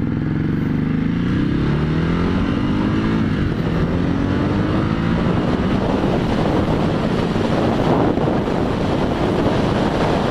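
Motorcycle engine pulling away and accelerating up through the gears, its pitch climbing and dropping back at each shift, three times. After about five seconds, wind rushing over the helmet microphone takes over as the bike reaches speed.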